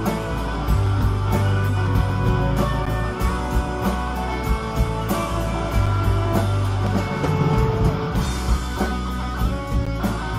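Live rock band playing an instrumental passage: electric guitars, bass and drums with a steady beat, and a violin.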